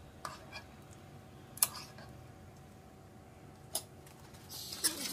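A few light clinks and knocks of a serving spoon against a cooking pot as beans are scooped out, one sharper knock about one and a half seconds in.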